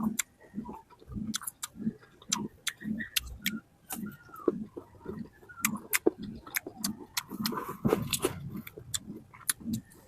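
Close-miked chewing of fruit: steady chews about three a second, with many wet mouth clicks and lip smacks.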